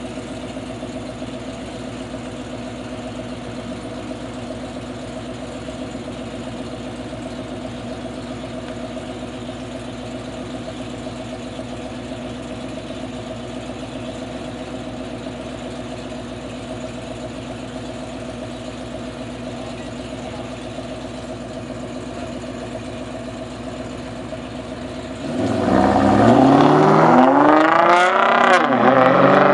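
A nitrous-equipped Chrysler 300C and a straight-piped Nissan GT-R idle side by side at the start line in a steady drone. About 25 seconds in, both launch at once, and the sound jumps much louder as the engines rev hard, climbing in pitch through the gears.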